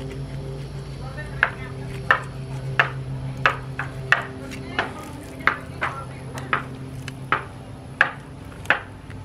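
Fillet knife working through a red drum fillet in repeated sawing strokes, a sharp click with each stroke about every two-thirds of a second, starting about a second and a half in. A steady low hum runs underneath.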